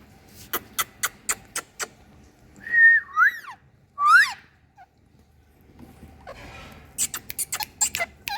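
Indian ringneck parrot making a quick run of sharp clicks, then whistled calls: a held note that slides upward, and a rising whistle about four seconds in. Another run of clicks comes near the end.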